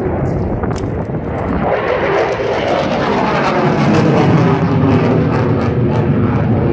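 Engine noise of an airplane passing low overhead, growing louder about two seconds in and staying loud.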